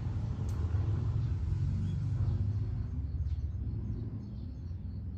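A low rumble that swells over the first couple of seconds and eases off after about three seconds.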